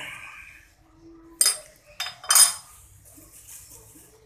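Metal-on-metal clinks from a metal lathe's three-jaw chuck being tightened with its chuck key on a small steel bolt: a brief scrape, then two sharp clinks with a short ring about a second apart.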